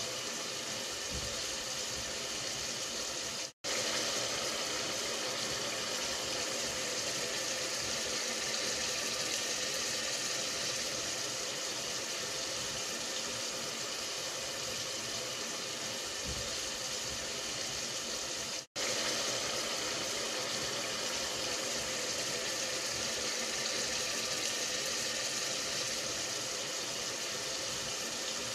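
A steady hiss of noise with a faint low rumble under it, cut off completely for a split second twice, about fifteen seconds apart.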